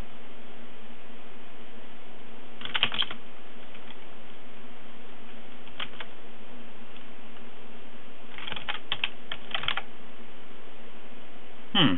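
Computer keyboard keys being typed in short bursts of clicks about three seconds in, six seconds in and around nine seconds in, over a steady hiss. A short, louder sound falling in pitch comes near the end.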